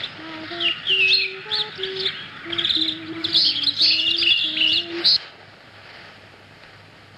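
Birdsong from a film soundtrack: many quick high chirps and trills over a series of lower held whistled notes. It all cuts off suddenly about five seconds in, leaving near-quiet.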